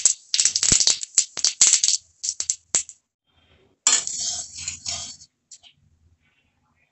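Whole cumin seeds crackling and spitting in hot mustard oil in a kadai: a dense run of pops for about three seconds, another burst about four seconds in, then dying away.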